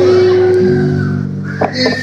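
Sustained chords held on a keyboard instrument: a single held note at first, then a lower chord joins about half a second in. A couple of short taps sound near the end.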